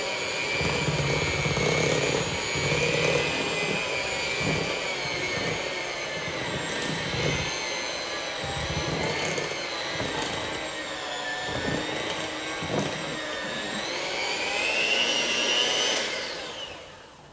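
Electric hand mixer running with a steady whine, its beaters working small pecan pieces into a thick quick-bread batter. The pitch rises a little, then the motor is switched off near the end and winds down.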